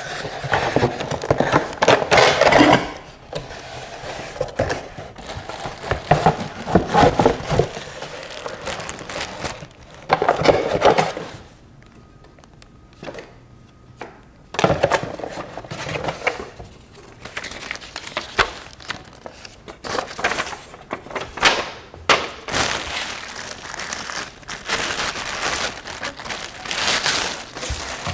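Cardboard packaging being handled and unpacked: box flaps and an inner tray scraping and folding, paper and plastic wrapping crinkling, with scattered knocks as pieces are set down. It comes in irregular bursts, with a quieter stretch about halfway through.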